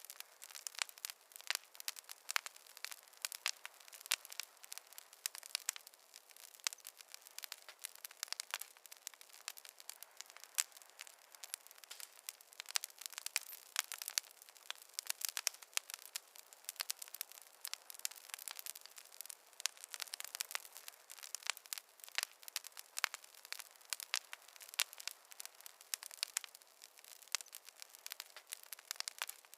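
Fireplace fire crackling, with many quick snaps and pops every second over a soft hiss. The crackling is thin and bright, with no low roar.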